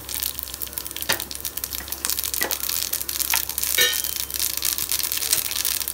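Mustard seeds and chana dal sizzling in hot oil for a tempering, with sharp crackles and pops as the mustard seeds splutter. The sizzle starts suddenly as the seeds hit the oil.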